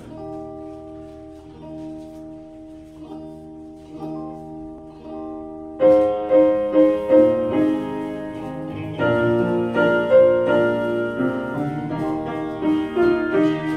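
Small church band playing an instrumental hymn intro: soft held keyboard chords, then about six seconds in the piano and saxophones come in much louder with a moving melody.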